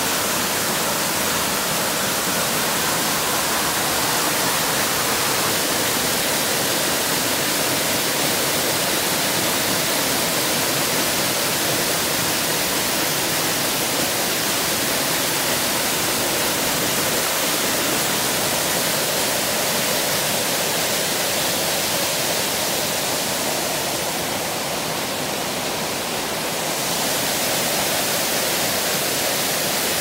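Waterfall: a loud, steady rush of falling water, dipping slightly for a couple of seconds near the end.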